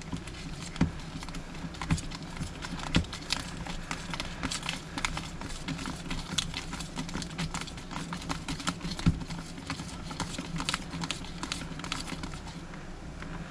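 Wire whisk beating a thick honey-garlic sauce in a plastic tub: a fast, irregular clicking and tapping of the wires against the container, with a few louder knocks.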